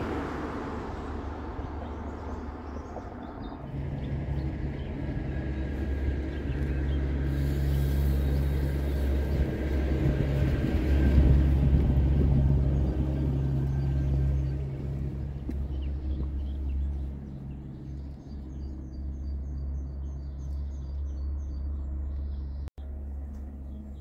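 A motor vehicle passing: a low engine rumble builds over several seconds, is loudest near the middle, then fades away. Faint bird chirps follow near the end.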